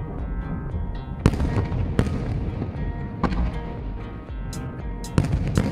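Aerial fireworks shells bursting: a series of sharp bangs, the first about a second in and the loudest pair near the end, with smaller cracks between, over background music.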